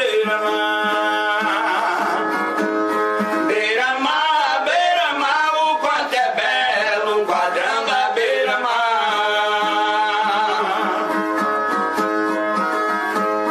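Brazilian viola caipira playing, with a man's voice singing a drawn-out, wavering melodic line over it until about eleven seconds in; then the viola carries on alone.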